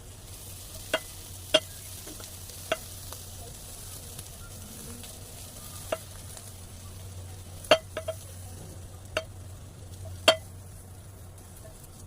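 Scrambled eggs with onion sizzling steadily in a frying pan while being stirred, the utensil knocking sharply against the pan about nine times at irregular intervals.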